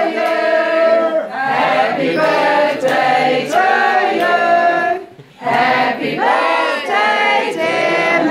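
A group of men and women singing together unaccompanied, holding long notes, with a short break a little past halfway.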